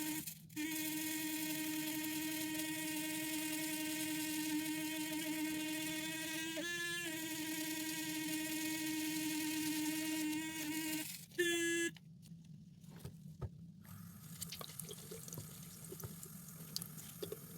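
Small handheld electric motor tool, such as a rotary tool or electric brush, running with a steady hum, pitch briefly shifting twice. About twelve seconds in it stops, leaving faint small clicks and handling noise.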